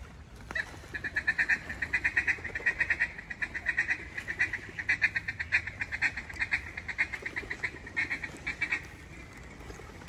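Mallard duck call blown in a long, rapid chatter of short, even notes, a feed call to work ducks overhead. It starts about half a second in and stops near the end.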